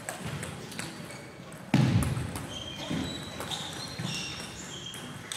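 Sports-hall sound between table tennis points: a sudden loud, echoing thud about two seconds in, light taps of a celluloid table tennis ball, and short high squeaks like sports shoes on the wooden hall floor in the second half.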